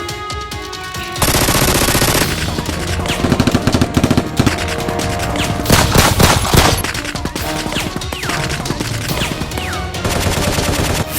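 Rapid automatic gunfire in bursts, the gunshot sound effects of an edited Nerf battle, with background music underneath.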